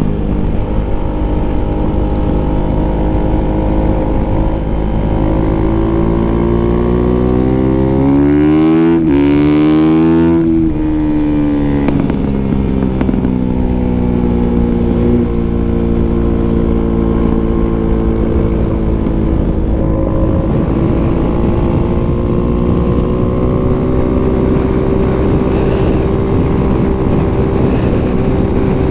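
Kawasaki KX450F single-cylinder four-stroke dirt bike engine running while being ridden, heard close up from the bike. Its pitch climbs for several seconds to a peak about ten seconds in, drops sharply, then holds fairly steady.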